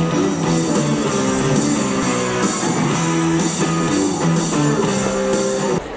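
Music with held notes and a moving melody, which cuts off suddenly near the end.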